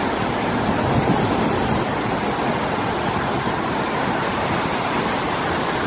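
Ocean surf breaking and washing over a rocky shore, a steady rushing roar of waves.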